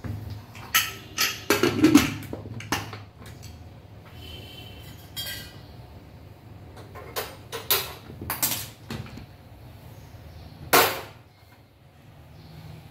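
Clinks and knocks of metal kitchenware as an aluminium Pigeon pressure cooker's lid is fitted and closed and the cooker is set on a gas stove. There is a cluster of sharp knocks in the first few seconds, more around seven to nine seconds in, and one louder knock near the end.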